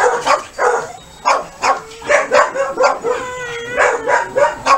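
German Shepherd barking and yipping in quick short calls, about two to three a second, with one longer drawn-out whine about three seconds in.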